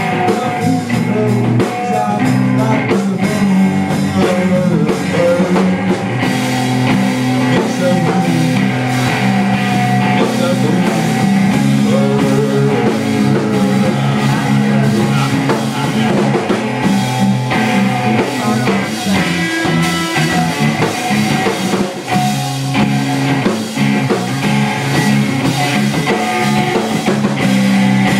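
Live rock band playing: electric guitar, bass guitar and drum kit, loud and continuous, with a steady driving drum beat.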